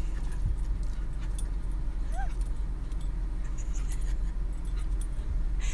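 Steady low rumble inside a stopped car, with faint jingling clicks and one brief, faint dog whine about two seconds in.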